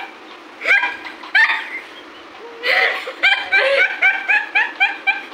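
Two young women laughing hard in short high-pitched giggles, spaced out at first and then in a quick run of about three to four a second from about halfway in.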